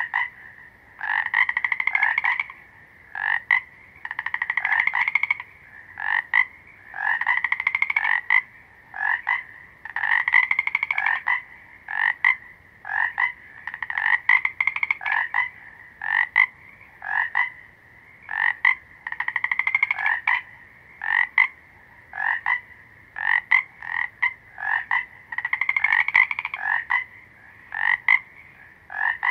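Frog croaking over and over: pulsed croaks about a second long alternate with short single notes, one call every second or two.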